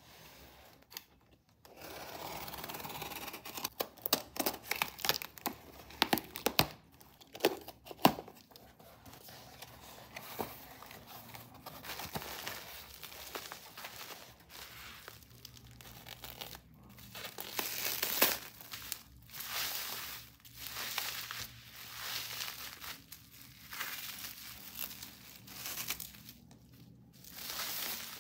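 Packing tape ripped off a cardboard box and the cardboard flaps pulled open, with sharp knocks and cracks of cardboard. Then bubble wrap crinkling and rustling for a long stretch as the wrapped items are handled and unwrapped.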